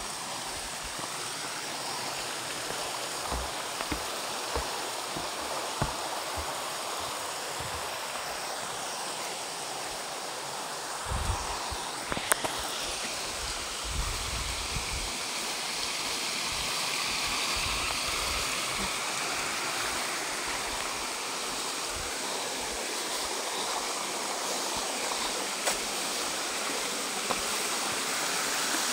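Rushing water of a waterfall, a steady, even roar of falling and splashing water. A few brief low rumbles on the microphone come near the middle.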